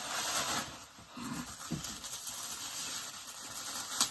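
Tissue paper rustling and crinkling as it is pulled off and handled around a boxed toy, easing briefly about a second in.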